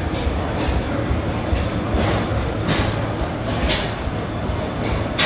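Other old stationary engines running in the hall: a steady low rumble with irregular sharp hissing puffs.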